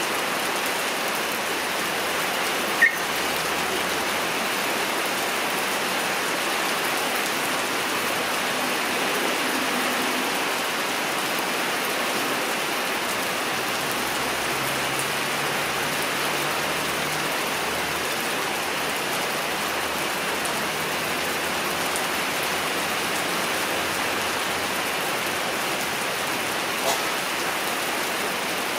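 Steady rain-like hiss, with one sharp click about three seconds in and a fainter one near the end.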